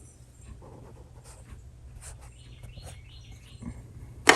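Faint small ticks and scrapes of a hand tool working the bent pins of a Rock-Ola jukebox's popularity-meter gear, over a steady low hum, with one sharp metal clink near the end.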